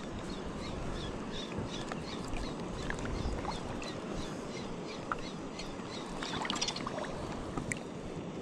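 Steady wash of sea water at the shoreline. Through the first few seconds there are faint light ticks, about three a second, and a short cluster of clicks comes about six and a half seconds in.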